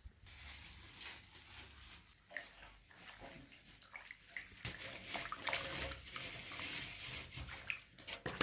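A hand swishing and squeezing lumps of dough in water in a large metal basin, with light sloshing and small splashes, louder from about halfway through.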